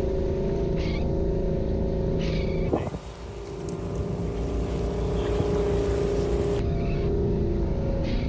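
Four-wheel-drive vehicle's engine running steadily under load while wading through a deep river, with river water rushing and splashing around the vehicle. There is a brief dip about three seconds in.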